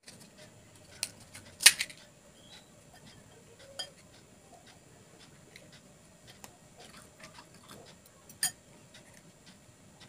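Crisp panipuri shells being cracked open and filled, with sharp clicks and taps of a spoon against glass bowls. The loudest crack comes about a second and a half in, and another sharp one near the end.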